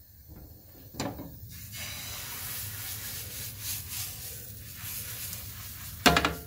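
Thin batter hissing and sizzling on a hot granite-coated crepe pan as it is poured and swirled across the surface, starting about a second and a half in and holding steady. Near the end a single sharp knock as the pan is set back on the gas burner's grate.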